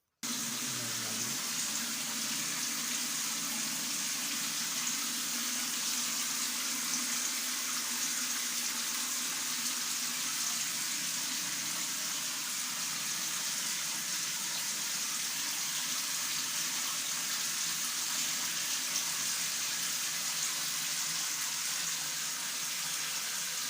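Water spraying steadily from an electric shower head: an even hiss of falling water.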